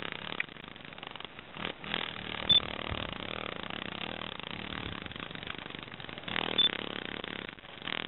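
Dog-day cicada giving a raspy distress buzz while gripped and eaten by a Chinese mantid, swelling louder in two bursts. Two very short high beeps are also heard.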